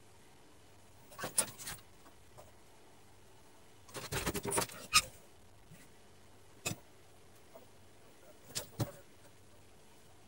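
Scattered clicks and knocks of handling on a workbench, with a denser second-long patch of rustling and tapping about four seconds in.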